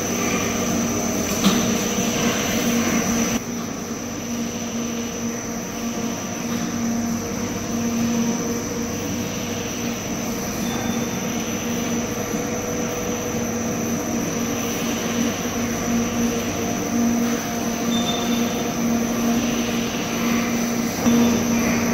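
Soda cracker production line machinery running: conveyors, a rotary cutting roller and gear motors give a steady mechanical hum with a low drone that swells and fades and a thin high whine.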